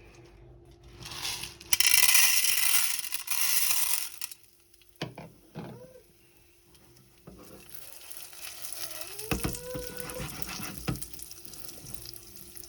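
Popcorn kernels sizzling in hot oil in a pan, with a loud sizzle for about two seconds near the start. From about the middle on, a quieter sizzle runs with frequent small crackles.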